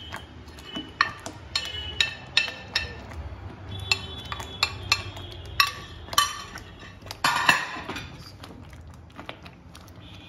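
Steel spoon clinking and scraping against a glass bowl as roasted gram flour is spooned out into a pan: a run of sharp, separate clinks, with a louder clatter about seven seconds in, then quieter.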